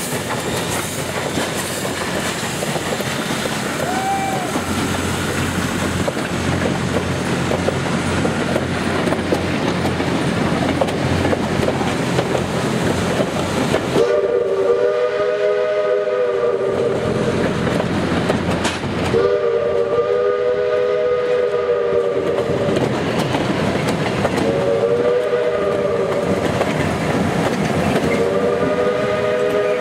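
Steam locomotive No. 154 pulling its train away, with the passing coaches rumbling and clacking over the rails. About halfway through, the locomotive's chime whistle blows several long blasts with short breaks between them.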